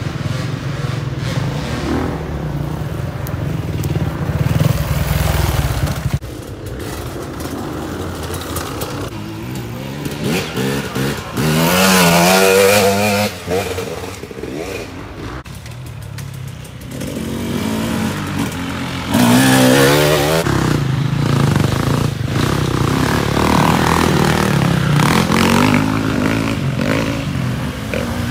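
Off-road motorcycle engines running and revving, with two loud bursts of acceleration, about twelve and about nineteen seconds in, where the pitch climbs.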